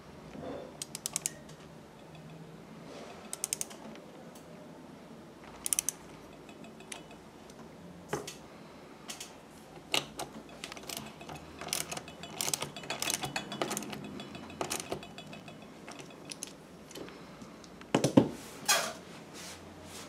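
Socket ratchet wrench clicking in short quick bursts, three times, as the adjustment bolts by the sewing machine's bevel gears are tightened. Then scattered metal clicks and knocks as the gear mechanism is handled, with a louder pair of knocks near the end.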